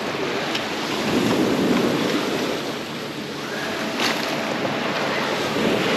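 Sea waves washing up on a sandy beach, swelling a little about a second in, with wind on the microphone.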